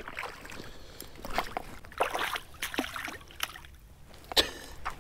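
A hooked channel catfish thrashing and splashing in shallow water at the bank as it is landed: a run of irregular splashes and slaps, the loudest a little over four seconds in.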